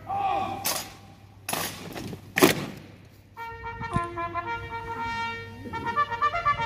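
A few sharp loud crashes, the loudest about two and a half seconds in. Then, about halfway through, a military brass band starts playing held chords.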